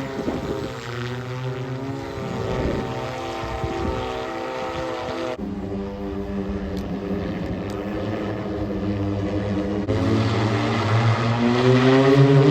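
Propellers of a car-sized multirotor drone running, a steady many-toned hum that changes abruptly twice and rises in pitch and loudness near the end.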